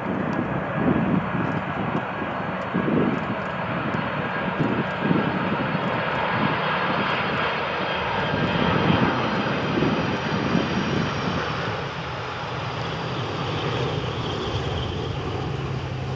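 Boeing 747-400 jet airliner's four engines running as it comes in to land, a steady jet roar with a faint high whine that slowly falls in pitch as it passes. It is loudest near the middle and eases off toward the end.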